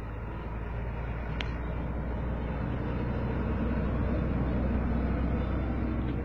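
Motor vehicle running with a steady low engine rumble that grows gradually louder, and one short sharp click about a second and a half in.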